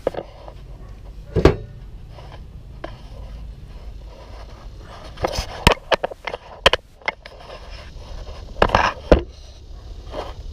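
A few sharp clicks and knocks of hand tools and metal spindle parts being handled on a mower deck, the loudest as a cluster near the end, over a low steady rumble.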